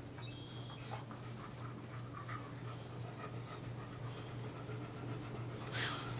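Dogs panting and sniffing close up, with a short, loud breathy burst near the end.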